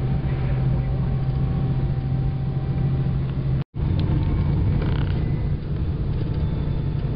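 Steady engine hum and road noise of a car being driven, heard from inside the cabin. The sound cuts out for a split second about three and a half seconds in, then carries on.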